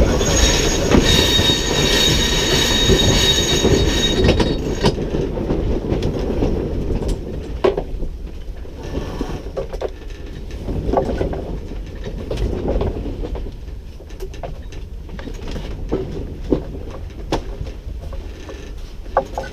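Sailboat under way just after a tack: a steady low rushing noise with a high, steady whine over it for the first four seconds or so, then scattered clicks and knocks.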